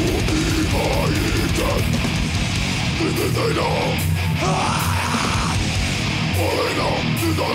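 Death metal band playing live: heavily distorted electric guitars and bass over fast drumming with constant cymbal hits, and growled vocals coming in and out over the top.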